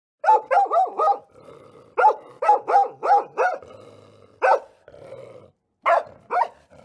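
A dog barking in quick runs of short barks, about a dozen in all.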